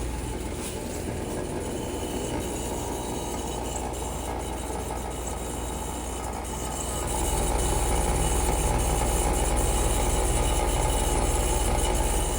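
Heat pump outdoor unit running, a steady compressor and fan hum that grows louder about seven seconds in. The unit is running in heat mode with frost on it and is judged to be low on refrigerant charge.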